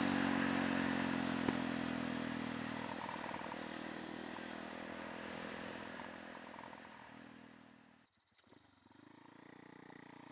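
Honda MSX125's single-cylinder four-stroke engine running at a steady cruise, with wind and road noise, gradually fading away over several seconds.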